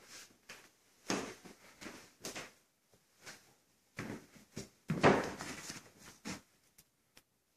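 Footsteps and knocks, irregular and a few per second, in an empty room. The loudest comes about five seconds in, and the sounds die away near the end.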